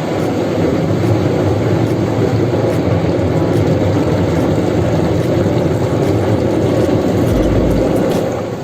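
Automatic car wash machine working over a car: a loud, steady rushing noise that eases slightly near the end.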